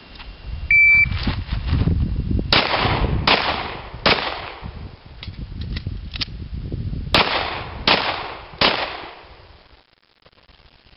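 A shot timer's short beep, then six pistol shots fired strong-hand only: three quick shots about 0.8 s apart, a pause of about three seconds, and three more at the same pace.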